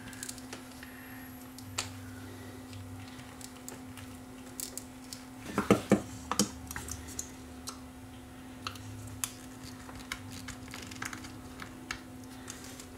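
Flat-blade screwdriver prying and scraping at the glued seam between the plastic diffuser dome and base of a Feit Electric LED bulb: scattered small clicks and scrapes of the blade on plastic, with a louder cluster of clicks about six seconds in.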